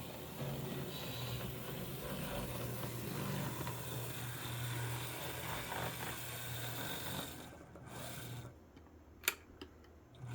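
HO scale brass U50 dual-motor model locomotive running along the track: a steady low motor hum with a rasping mechanical rub from the drive and wheels on the rails. Near the end the hum drops away and a single sharp click stands out.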